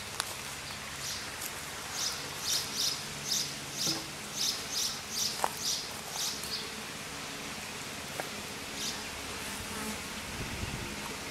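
Honey bees buzzing around an open hive, a steady hum. In the first half comes a quick run of short high-pitched rasps, about three a second, for a few seconds.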